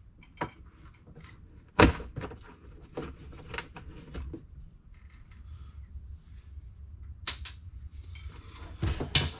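Scattered clicks and knocks of hard parts and tools being handled while a truck's heater box is taken apart: one sharp knock about two seconds in, a run of lighter clicks after it, and a few more sharp clicks near the end.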